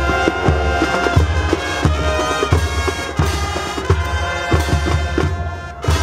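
High school marching band opening its field show: brass and woodwinds playing loud held chords over drumline and bass drum hits, entering suddenly at the start, with a brief break near the end.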